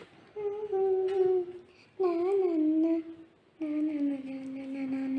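A young girl humming a tune in three drawn-out notes, the last held for about two seconds and sinking slightly in pitch.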